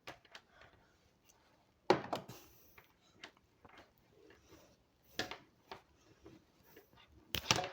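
Scattered handling clicks and rustles from an Ethernet cable and its RJ45 parts being worked by hand, with a sharp knock about two seconds in and a cluster of clicks near the end.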